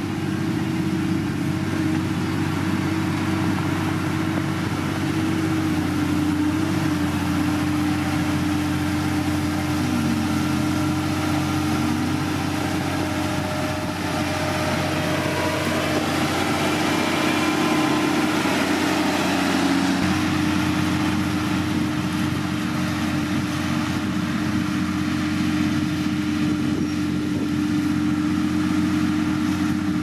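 Diesel engine of heavy road-building machinery running steadily under work, its note shifting slightly in pitch a few times.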